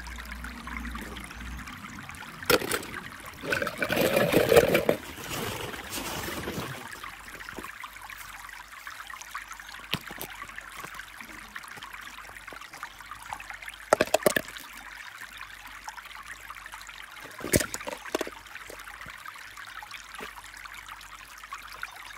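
Steady trickling, water-like hiss, with a few sharp clicks and clatters of small plastic toys being handled; the loudest is a rattling stretch about four seconds in.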